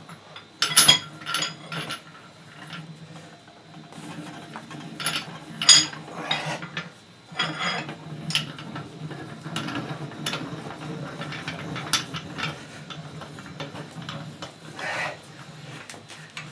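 Steel leg vise parts being fitted, with the vise screw going on over its thrust washer: irregular metal clinks and knocks with some scraping of steel on steel, the sharpest clink about six seconds in.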